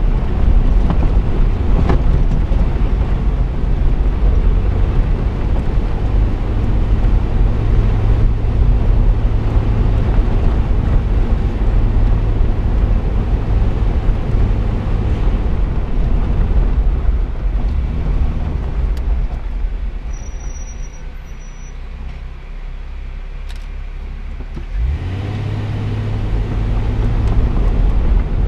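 Jeep driving on a gravel dirt road: a steady low engine and tyre rumble. About two-thirds of the way through it eases off and quietens for several seconds, then picks back up near the end.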